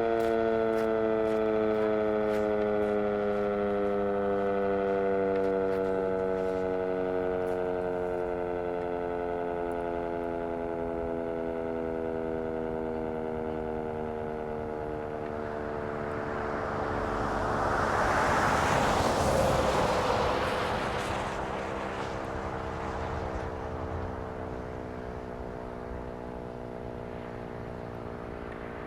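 Sentry 10V outdoor warning siren winding down slowly after a full attack signal, its chord of several tones sliding steadily lower and fading. About two-thirds of the way through, a passing vehicle's noise swells and fades over it.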